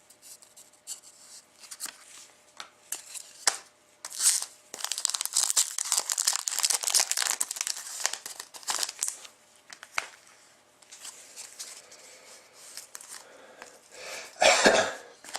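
A 2014-15 Fleer Showcase hockey card pack being torn open and handled: the wrapper crinkles and tears and the cards rustle and click. The rustling is densest from about four to nine seconds in, with a short louder rustle near the end.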